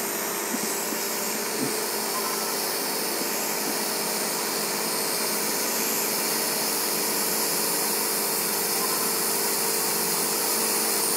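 Hot air rework station blowing a steady hiss of hot air onto a laptop motherboard, desoldering a burnt MOSFET.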